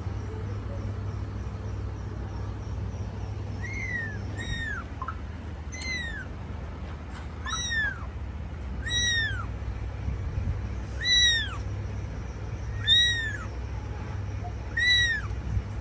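A young kitten meowing repeatedly: about eight high-pitched calls, each rising then falling, one every one to two seconds from a few seconds in, over a steady low hum.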